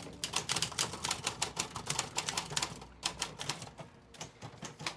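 Manual typewriter being typed on: a quick, uneven run of key strikes, each a sharp clack of a typebar against the platen. The strokes thin out about three seconds in.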